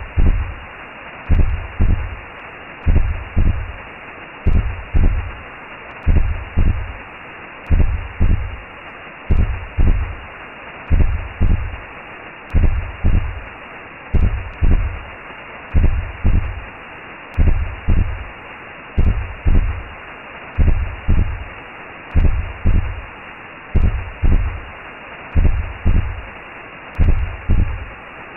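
Recreated womb sound: a steady whooshing noise with a slow heartbeat over it, a low double thump about every second and a half.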